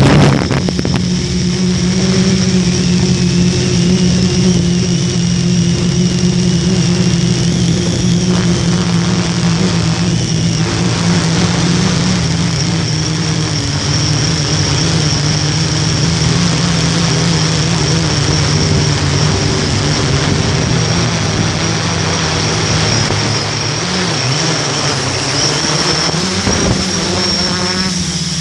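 S500 quadcopter's electric motors and propellers buzzing steadily, heard close from its on-board camera, with a thin high whine above the hum. The motor pitch wavers up and down in the last few seconds as the craft comes down low.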